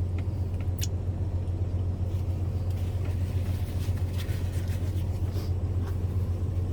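Steady low background hum and rumble, with a few faint scattered clicks.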